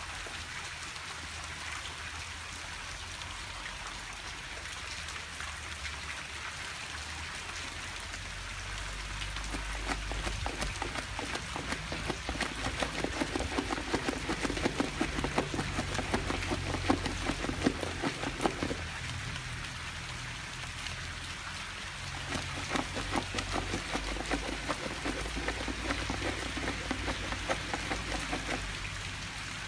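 Steady rain hissing on the grass, with a dog clawing rapidly at a board on the ground in two long spells of scratching, one starting about a quarter of the way in and another later on.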